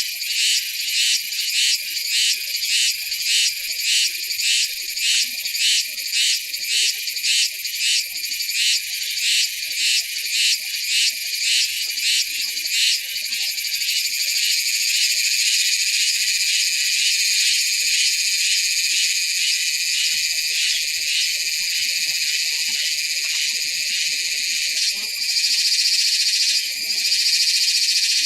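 Cicada song, a loud high-pitched buzz. It pulses about twice a second for the first half, then settles into a steady unbroken drone.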